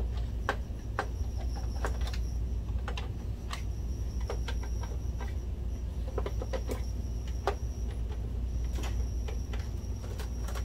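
Irregular clicks and taps of hands and tools on a plastic projector case as loose case screws are worked out, over a steady low hum. A faint high whine comes and goes.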